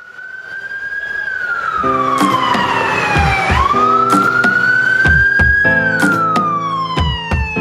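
Emergency vehicle siren in a slow wail: it glides up, sinks, jumps back up and rises again, then sinks once more, fading in at the start. Music with a drum beat comes in under it about two seconds in.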